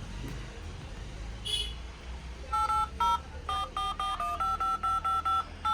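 Smartphone dial-pad tones: a quick run of about a dozen short two-note keypad beeps, roughly four a second, starting about halfway through, as a number is keyed in on the phone. A short high beep comes about one and a half seconds in, and a steady low hum runs underneath.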